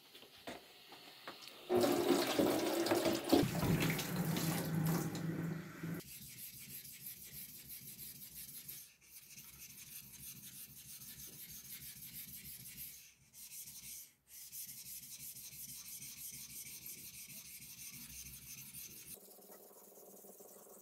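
A Japanese deba knife being sharpened by hand on a wet whetstone: the blade rubs across the stone in steady strokes. A louder stretch of rubbing and scraping comes in the first few seconds, and then the strokes go on more quietly.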